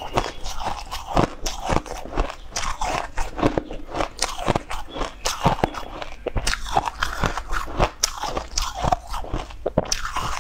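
Close-miked crunching and chewing of a frosty chunk of purple-coloured ice, a rapid, irregular run of sharp crunches.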